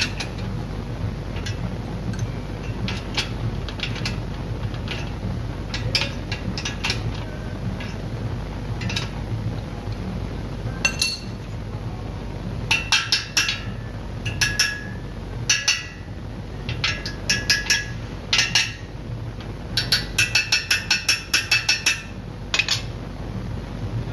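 A steel hand tool striking the steel box-section tennis post and its fittings: scattered light clicks, then from about halfway bursts of rapid ringing metallic taps, several a second, with the densest run near the end. A steady low hum underneath.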